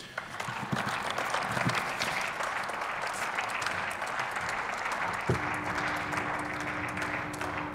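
Applause from members of the German Bundestag in the plenary chamber: many hands clapping steadily at the end of a speech. About five seconds in there is a knock, and a steady low tone sets in under the clapping.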